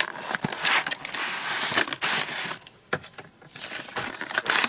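Cardboard and plastic packaging being handled: a cardboard blind box scraping out of its display carton, then a clear plastic blister tray holding an N-gauge train model rustling and crinkling in gloved hands, with many small clicks. There is a brief lull in the middle.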